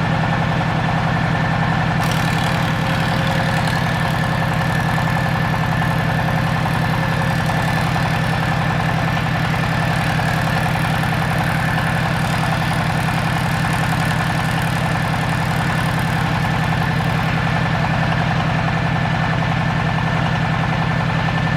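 A machine running steadily with an even engine-like hum and a thin, steady high whine above it, with no change in load or pitch.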